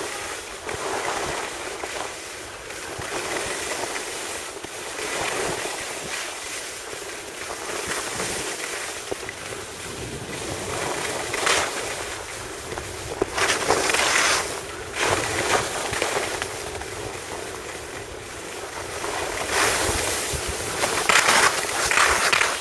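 Skis hissing and scraping over packed, grooved snow during a downhill run, with wind rushing on the microphone. The hiss swells in surges, loudest near the end.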